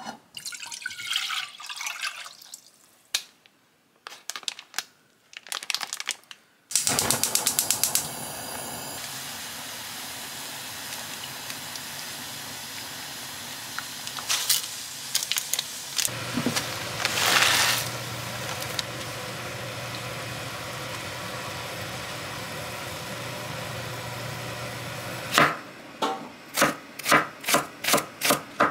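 Stovetop cooking in a small nonstick saucepan on a gas stove: a rapid run of clicks, then a long steady hiss as the liquid heats over the flame, with a liquid soup base squeezed in partway through. Near the end, a kitchen knife chops green onion on a wooden cutting board, about two to three chops a second.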